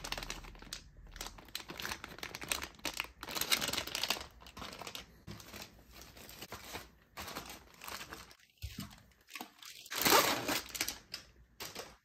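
Clear plastic bags crinkling and rustling in irregular bursts as packaged sleeved cables are handled, loudest about ten seconds in.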